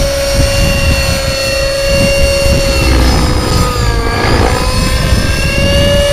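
Radio-controlled model helicopter flying low and fast, its engine and rotor giving a steady high whine. The pitch dips about halfway through as it climbs and swings past close by, then comes back up.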